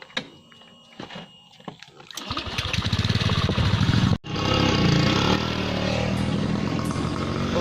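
A small engine running steadily after a quiet stretch broken by a few clicks; the sound cuts out for a moment about four seconds in, then carries on.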